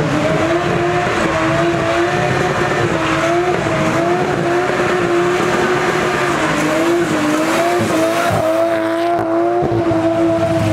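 Car engine held at high, slightly wavering revs while the rear tyres spin in a smoky burnout, with tyre squeal over it.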